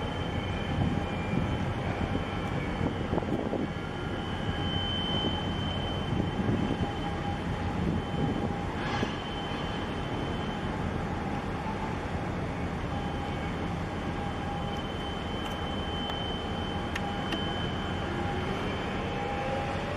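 Steady low rumble and drone of a large container ship's machinery as it passes close by, with a faint high whine that comes and goes.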